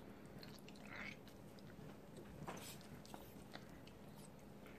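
Faint wet squelching of a cloth strainer bag full of blended aloe vera gel and coconut oil being squeezed by hand, in a few soft, separate squishes.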